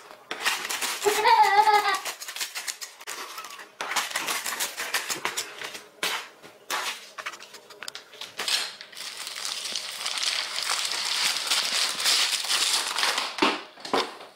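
Scissors snipping through a plastic bubble mailer in short clicks and cuts, then the mailer's plastic crinkling and tearing for several seconds as it is pulled open. A short wavering voice-like call sounds about a second in.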